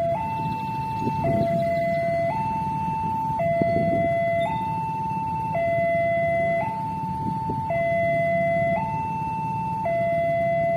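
Railway level-crossing warning alarm sounding a steady two-tone high-low signal, each tone held about a second, with a low rumble underneath.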